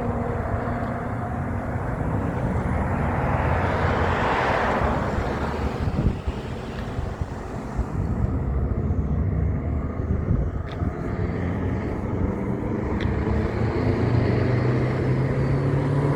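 Road traffic with heavy trucks passing: tyre and engine noise swells about four to five seconds in, and a truck engine grows louder near the end.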